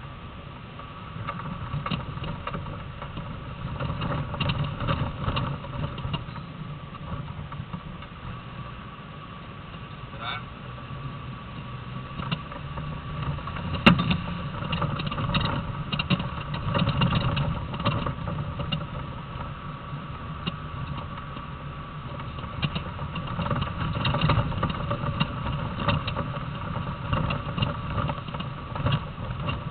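Land Rover Defender engine running while driving, heard from inside the cabin, with frequent rattles and knocks from the vehicle and one sharp, loud knock about halfway through.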